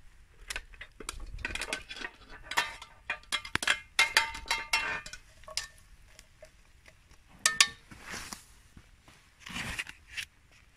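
Metal tongs clinking and scraping against a cast-iron dutch oven while stirring chunks of carrot and potato, a quick run of ringing metallic clinks that thins out after about five seconds, then a few softer rustles near the end.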